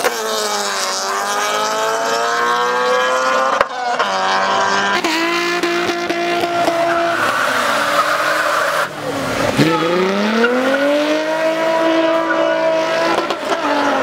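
Car engines at full throttle, pitch climbing and dropping through gear changes as cars launch in a drag race. About seven seconds in comes a spell of tyre squeal from a burnout, then an engine pulls up in pitch again as another car launches.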